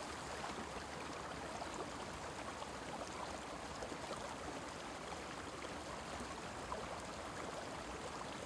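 Faint, steady wash of flowing river water.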